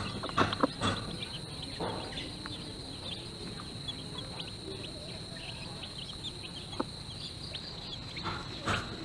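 Mother hen clucking in short low notes, evenly spaced, during the first second, then softer, with faint chick peeps. Under it runs a steady high-pitched whine.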